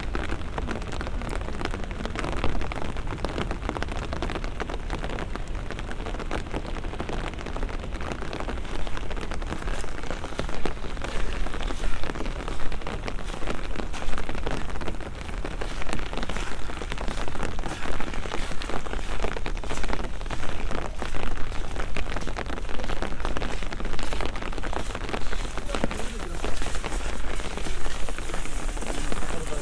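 Steady rain with many close, sharp drop hits over a low rumble; the drop hits grow denser and louder about a third of the way through.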